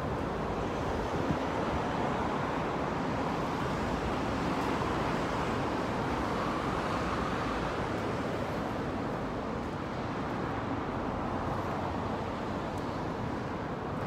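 Steady city road traffic noise, swelling and easing as vehicles pass on the road below.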